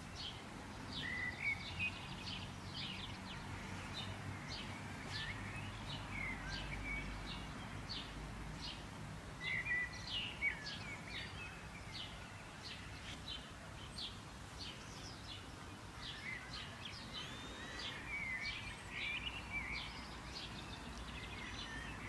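Small birds chirping and singing outdoors: many quick, sharp high notes with a few slurred calls, denser near the start and again near the end. Under them is a steady low rumble of outdoor background noise.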